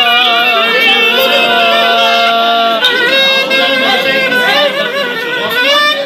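Metal clarinet playing a folk melody: quick wavering ornamented notes, a note held for about two seconds, then more ornaments and a fast rising slide near the end.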